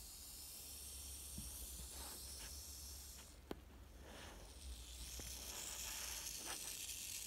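Puff adder hissing defensively, agitated by someone close to its enclosure glass: a long, steady hiss that breaks off briefly about halfway through, then comes back stronger.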